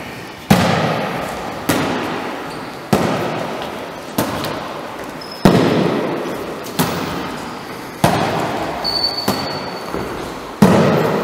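A volleyball struck back and forth between two players' hands in two-handed overhead passes. Each contact is a sharp slap, coming about every 1.2 seconds, and each echoes in a large gym hall.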